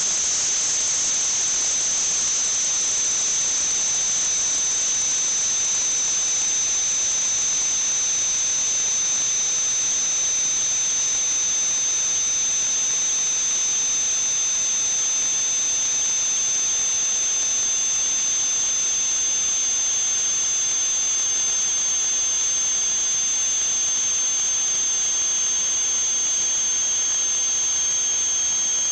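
A steady high-pitched whistle over a hiss, with a second, lower tone that slowly falls in pitch.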